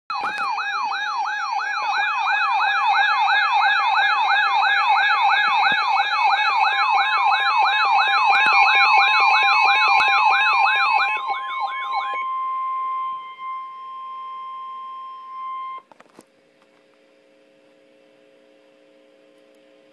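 Emergency alert siren sweeping up and down about three times a second over a steady tone, signalling an Emergency Alert System severe thunderstorm warning. About twelve seconds in the sweeping stops and a single steady tone carries on for a few seconds, then cuts off, leaving a faint hum.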